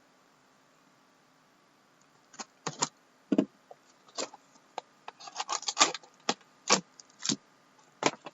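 Hands opening a sealed box of trading cards. After about two seconds of quiet come scattered sharp crinkles and clicks of packaging being torn and handled, with a dense flurry about five seconds in.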